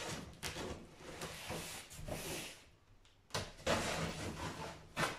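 Packing tape being peeled off a cardboard box in two long pulls, with a short pause about three seconds in.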